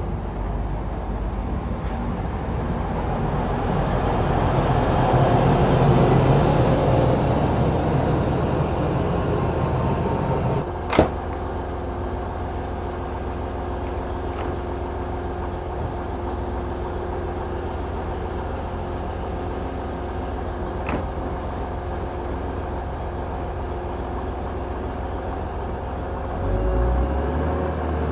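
A passenger train runs in along the platform and brakes to a stand, its running noise peaking then dying away. It then stands with a steady hum from its onboard equipment, broken by a sharp click about eleven seconds in and two fainter clicks later. Near the end a deeper rumble rises as it begins to move off.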